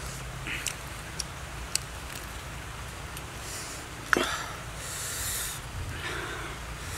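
A man eating roast meat with his hands: small wet mouth clicks while chewing, a sharp lip smack about four seconds in, and a short breathy sniff after it.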